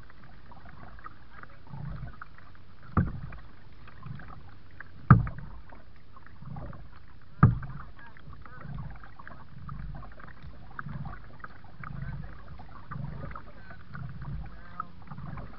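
Kayak paddling: soft rhythmic paddle strokes in the water, about one a second. Three sharp knocks stand out, about three, five and seven and a half seconds in, the middle one the loudest.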